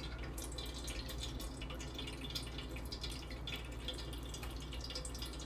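Whey dripping from fresh ayib curds through a fine-mesh tea strainer as the cheese drains dry, in small irregular drips.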